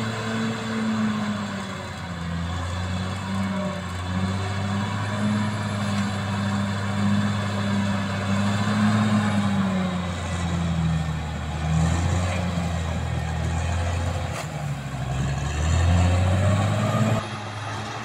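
Caterpillar D6R XL bulldozer's diesel engine working under load as the dozer pushes soil. Its pitch sags and climbs, with one sharp knock past the middle. The engine is loudest shortly before the sound drops off abruptly near the end.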